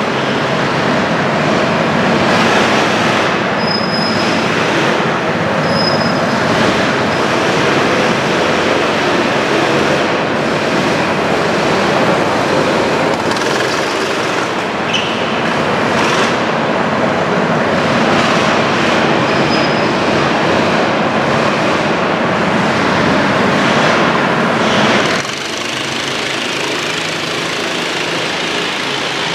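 Go-kart engines running as several karts lap an indoor track, a loud, dense, steady drone with a few brief high squeaks. The din drops somewhat near the end.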